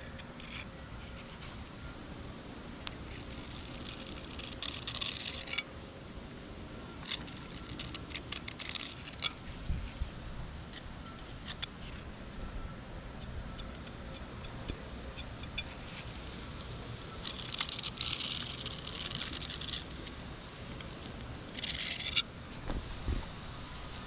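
Metal putty knife scraping across a concrete driveway as it smooths sealant into a crack, in several passes of a second or two each with light clicks between.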